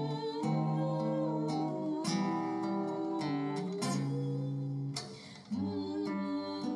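Acoustic guitar strumming chords, with a brief break in the playing about five seconds in.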